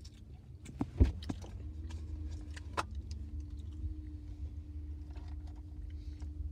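Car cabin noise: a steady low engine and road rumble with a steady hum, broken by a few small clicks and knocks. The loudest is a thump about a second in.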